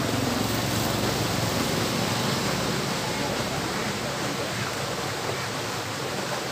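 Steady rushing of flowing water in a small stream, with a low rumble that fades away over the first few seconds.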